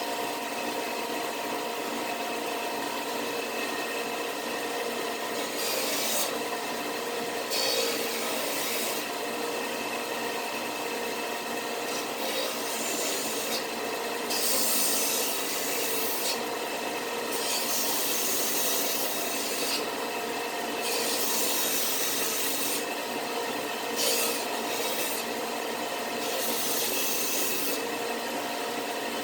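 Wooden box being abraded by hand: irregular scratchy strokes of a second or two each, over a steady hum with several fixed tones.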